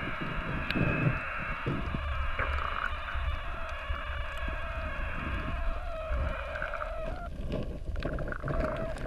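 Underwater sound heard through a submerged camera: low rumbling water movement with a steady droning whine that fades out about seven seconds in.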